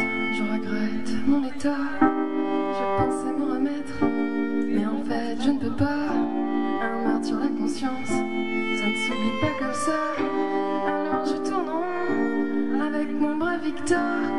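Live music: a violin playing sustained bowed notes, some sliding in pitch, over other instruments.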